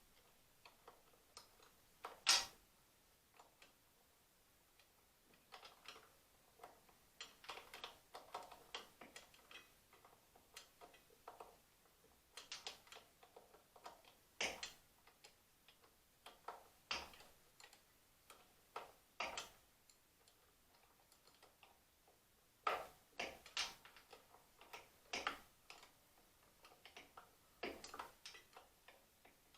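Irregular light clicks and taps of small metal parts and hand tools being handled during carburetor work, one sharper click a couple of seconds in.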